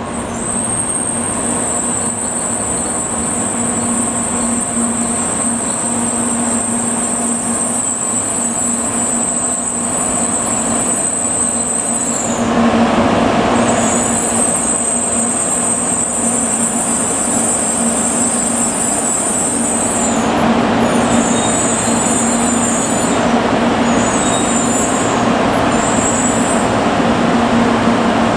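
N700 series Shinkansen train rolling into a station and slowing along the platform, with a steady rushing noise and a low hum that grow louder about halfway through as the cars pass close. A thin high whine runs through the first half, breaks off, and near the end comes in short spells.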